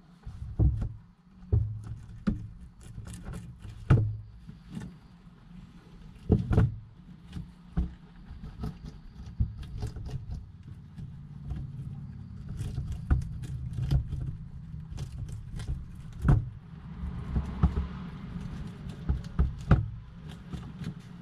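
Domestic white rabbits shuffling about and nibbling a cabbage leaf in a glass enclosure: irregular soft clicks and knocks, some sharp, over a low steady hum.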